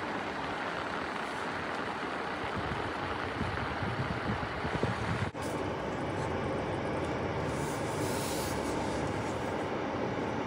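Steady road and engine noise heard from inside a moving car, broken by a sudden momentary drop about five seconds in.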